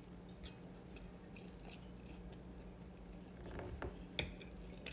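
Quiet, wet chewing of a forkful of salmon, with a few faint clicks, the sharpest about four seconds in.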